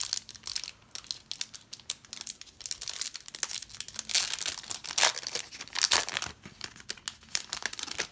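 Plastic trading-card pack wrapper being torn open and crinkled by hand: a dense, irregular crackling with a few louder crinkles partway through.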